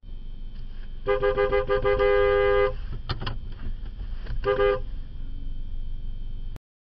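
Two-note car horn sounded in a rapid string of short toots, then held in a long blast, then another quick run of toots about four and a half seconds in: a warning to a pickup truck reversing toward the car. A low steady vehicle rumble lies underneath.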